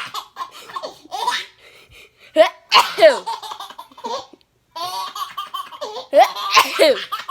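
An adult's fake sneezes, each answered by a baby's laughter, several times over.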